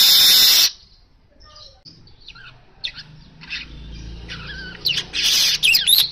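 Male streaked weaver singing: a loud buzzy, hissing burst of song that stops about two-thirds of a second in, then scattered quieter chirps and short notes, building again into loud, quickly gliding chirps and a second hissing burst near the end.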